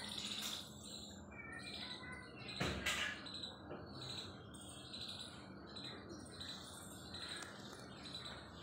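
Birds chirping faintly in the background, with a brief, louder noise about three seconds in.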